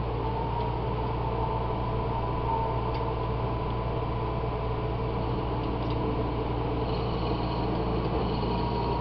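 Wood lathe running steadily while a drill bit held in a hand-held chuck bores a pilot hole into the spinning pipe block. The sound is a steady hum with a thin high whine.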